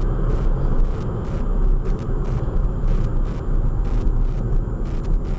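Steady low rumble of a car's engine and tyres while driving, picked up by a dash cam inside the cabin.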